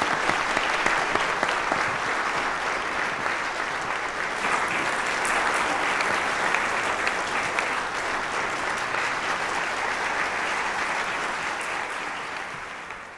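Large indoor audience applauding steadily, a dense continuous clatter of many hands clapping that fades away near the end.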